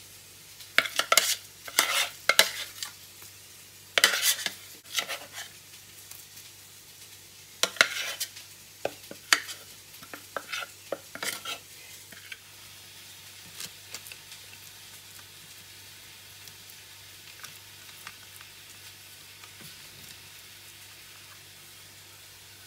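Metal spoon scraping and clinking against a ceramic bowl while stirring and scooping a thick mashed green pea burger mixture. There is a run of scrapes and clicks over the first twelve seconds or so, then only a few faint ticks.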